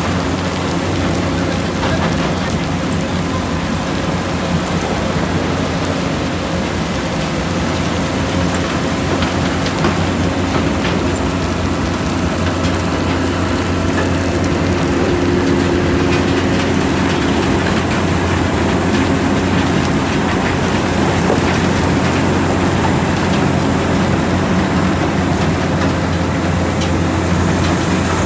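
McCloskey J40 tracked jaw crusher running steadily while crushing construction rubble: a constant diesel engine and crusher drone, with the rattle of crushed stone and grit falling off the discharge conveyor onto the pile.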